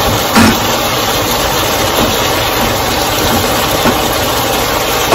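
Flank steak strips with garlic and ginger sizzling in a hot wok, a steady loud hiss, as a wooden spoon stirs them, with a brief knock of the spoon about half a second in.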